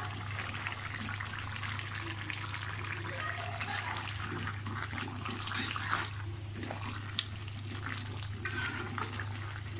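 Beef and cabbage curry simmering and bubbling in a pan over a steady low hum, with a few short scrapes or stirs of a spatula, the last of them near the end.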